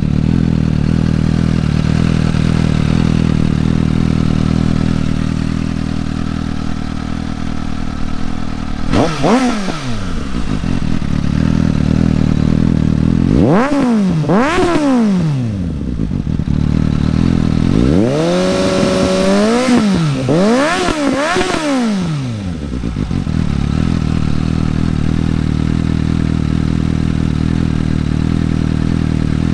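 2020 Suzuki GSX-S750Z's inline-four engine, exhausting through a Yoshimura AT2 slip-on silencer, idling steadily. It is revved with short throttle blips: one, then two, then a cluster of three with one held briefly. Then it settles back to idle.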